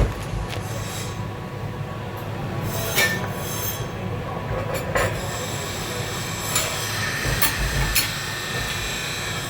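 MIG welding arc laying a bead on steel plate: a steady crackling hiss with a few sharper pops.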